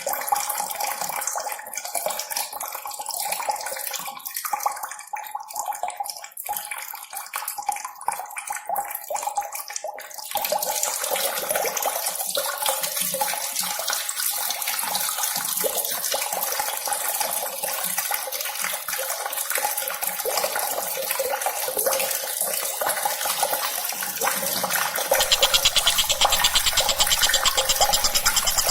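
Steady rushing of running water. It grows denser about ten seconds in, and louder again a few seconds before the end, where a fast, even rattling joins it.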